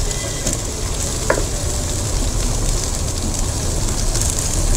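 Chopped vegetables sizzling in oil in a nonstick wok while a wooden spatula stirs and scrapes them across the pan, a steady hiss with occasional short scrapes.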